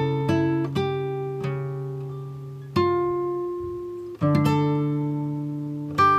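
Background music: slow plucked acoustic guitar, notes and chords ringing out and fading, with fresh strums about every second and a half.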